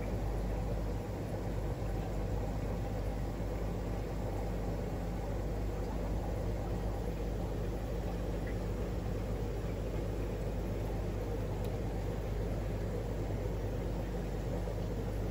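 Steady low hum with an even rushing noise underneath, from running aquarium equipment such as air pumps and filters.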